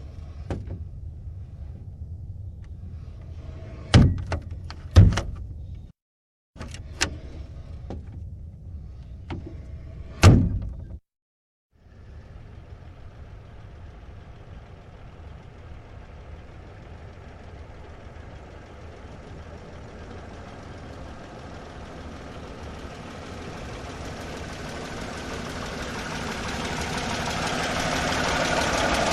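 Old car sound effect: a low rumble with sharp knocks like car doors being shut, three loud ones about four, five and ten seconds in, broken by brief silences. Then, about twelve seconds in, an old car's engine starts running steadily and grows gradually louder toward the end.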